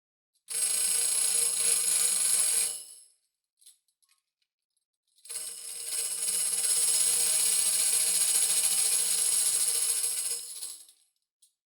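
10-inch Black Swamp TD1 tambourine played in two sustained jingle rolls, a short one of about two and a half seconds and a longer one of about five and a half seconds, each held at an even level and then fading out.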